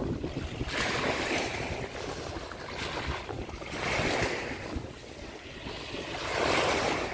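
Small Baltic Sea waves breaking and washing up a sandy shore, the surf swelling in a fresh rush every second or two.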